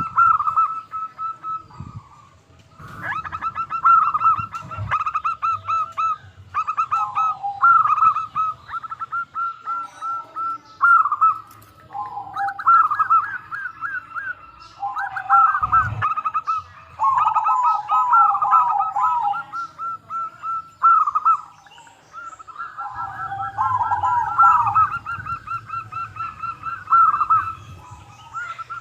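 Zebra doves (perkutut) singing: repeated rolling, trilled coos in phrases separated by short pauses, with a lower and a higher voice overlapping at times.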